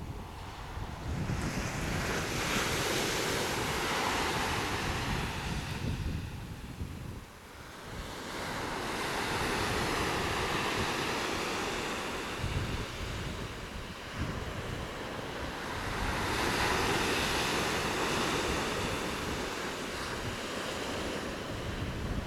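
Pacific Ocean surf: waves breaking and washing up a sand beach, rising and falling in three long swells, with wind buffeting the microphone.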